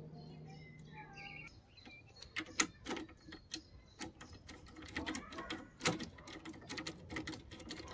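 Metal socket wrench clinking and clicking against a bolt and nut as it is fitted and turned, in many short irregular taps.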